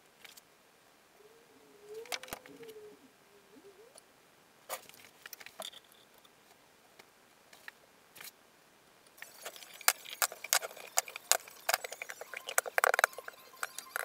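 Workshop handling sounds: scattered clicks and a brief wavering squeak in the first few seconds as a caulking gun is worked. From about nine seconds in comes a dense run of light metallic clicks and clinks, like small copper pieces being handled.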